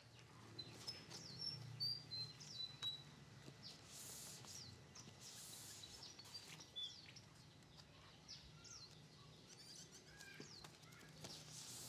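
Faint birdsong: several small birds chirping in short, high notes and quick falling calls, over a low steady hum.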